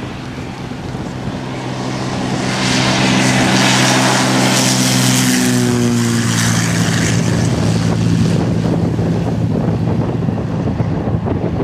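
Loaded turbocharged Cessna 182 Skylane's six-cylinder engine and propeller at full takeoff power, growing louder as the plane rolls toward and past, then dropping in pitch about five seconds in as it goes by and away. Wind buffets the microphone in the last few seconds.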